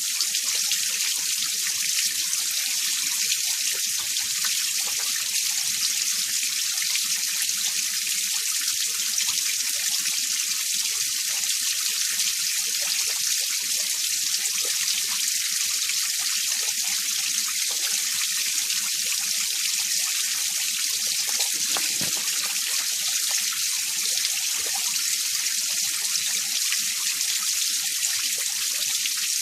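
Winter mountain-valley stream flowing steadily, an even unbroken rush of water with no separate splashes standing out.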